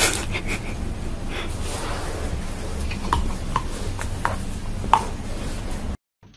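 Upturned cups being knocked over by a cat's paw: a string of light knocks and clatters, several with a short ring, over a steady hiss. The sound cuts off suddenly near the end.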